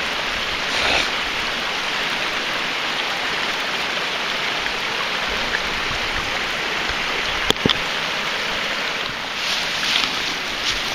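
Steady rushing of a creek flowing close by, with one sharp click about seven and a half seconds in.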